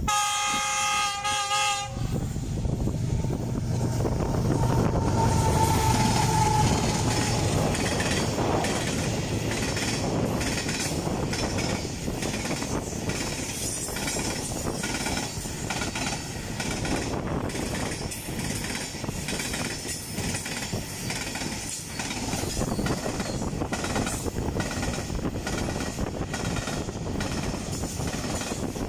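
A GEU40 diesel locomotive sounds its horn for about two seconds, and the horn cuts off sharply. The locomotive rumbles past. A long string of loaded-freight coal hopper wagons then rolls by close at speed, their wheels clattering steadily over the rail joints.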